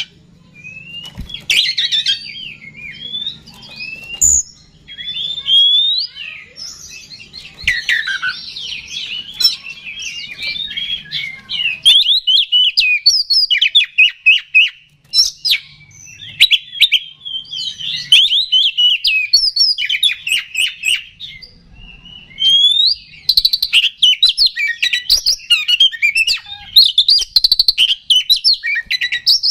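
Oriental magpie-robin (kacer) singing a long, varied song of rapid whistles, chattering trills and sliding notes, with only short breaks. This is the vigorous, excited 'gacor' song that keepers play as a lure to stir other magpie-robins.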